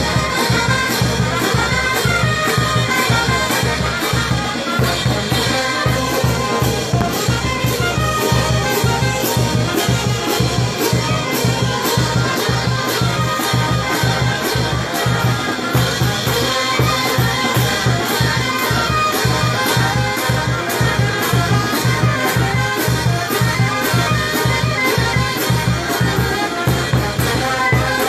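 Brass band playing live: trumpets, trombones and sousaphones over a steady beat.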